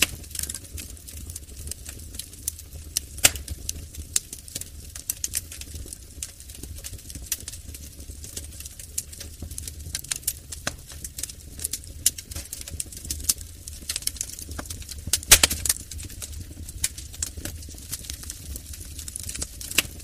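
Fire crackling: irregular sharp pops and snaps over a low steady rumble, with louder pops about three seconds in and again around fifteen seconds in.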